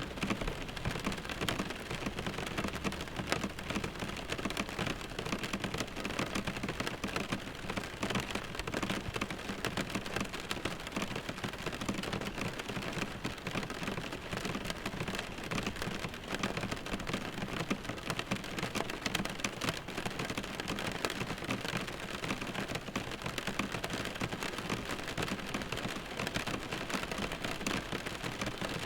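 Steady rain falling: an even, dense hiss of many small drops striking a surface, with no break or change.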